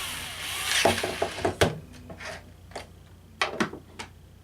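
Power drill driving in a ground screw, running for about the first second with a brief surge. It ends in a quick string of sharp clicks, followed by a few scattered light clicks and knocks.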